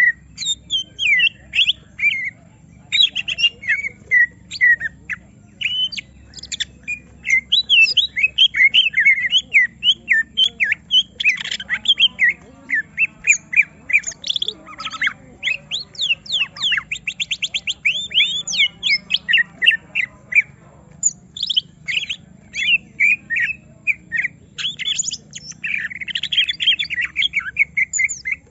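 A cucak ijo (green leafbird) singing a fast, varied song of sharp whistled notes, squawks and chatter, with a rapid trill about halfway through. This is the agitated song of a bird that has been provoked by a rival.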